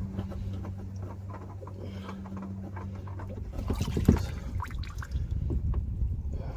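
Engine oil pouring out of the drain hole into a drain bucket as the drain plug comes free, with a cluster of metallic knocks, the loudest about four seconds in, from the wrench and plug. A steady low hum runs through the first half.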